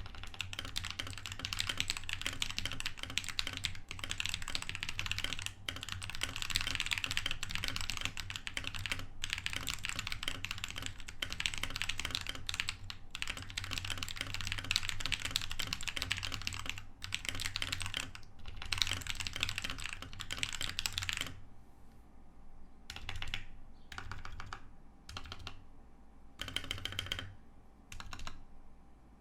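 Tecware Phantom 87 mechanical keyboard with lubed Akko CS Lavender Purple tactile switches and Havit PBT pudding keycaps being typed on fast and steadily. About two-thirds of the way through the typing stops, and only a few short runs of keystrokes follow.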